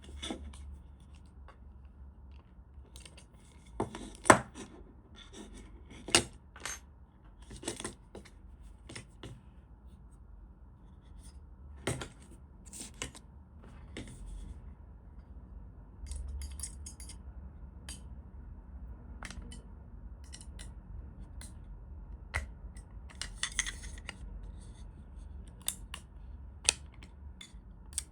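Palm rest and split-keyboard parts being handled and fitted by hand: irregular clicks, taps and short scrapes, the sharpest click about four seconds in, over a steady low hum.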